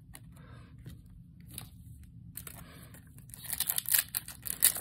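A foil Yu-Gi-Oh booster pack wrapper being torn open by hand. It starts with a few faint taps, then crinkles and tears, growing to sharp, loud crackling in the last second and a half.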